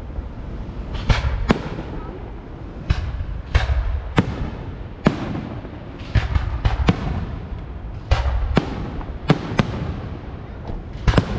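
Fireworks going off in an irregular rapid series of about fifteen sharp bangs, each with a short fading echo, over a low rumble.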